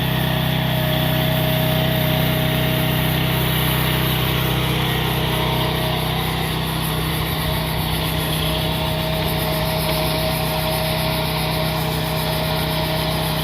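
Small 420 cc air-cooled single-cylinder gasoline engine of a MIVA VA13 mini excavator running steadily, with a thin steady whine over the engine note; the low engine tones shift slightly about halfway through.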